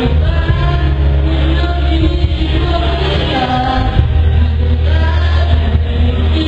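A boy singing into a corded microphone over a backing track with steady, heavy bass, both amplified through a PA.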